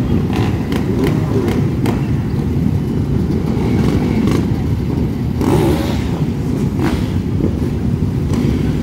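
Many dirt bikes and sport bikes running together in a loud, steady rumble, with short sharp blips or pops now and then.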